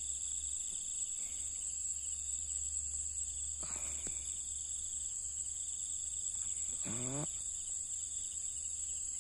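Steady high-pitched trilling of night insects, with a man's short voice about seven seconds in.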